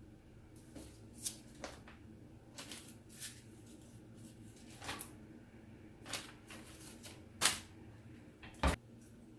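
Handling noise: about ten scattered light clicks, taps and rustles of hands working with hard plastic and metal objects, with a sharper knock about seven and a half seconds in and another near nine seconds.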